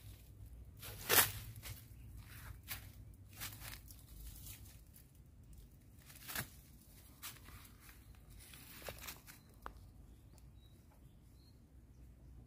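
Scattered crunching and rustling of dry leaves and twigs, the loudest crunch about a second in: a puppy rooting through leaf litter and undergrowth, with steps on the dry ground.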